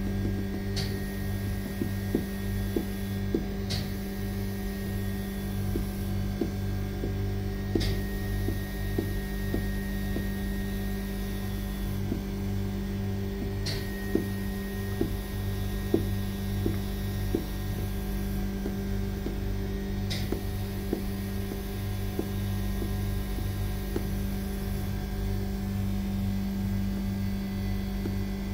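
Steady electrical hum with a pulsing low throb under it, with faint short clicks scattered through it.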